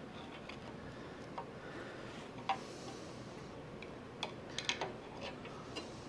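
Scattered light clicks and taps as axle hub and bearing parts are handled, with a small cluster of them a little past the middle.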